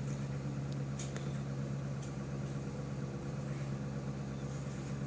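Steady low mechanical hum, with two faint clicks about a second in.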